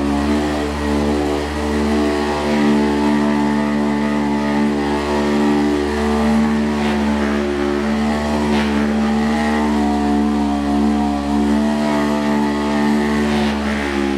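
Electric vibrating chiropractic adjusting instrument running with a loud, steady motor buzz as it vibrates the patient's spinal joints to loosen scar tissue.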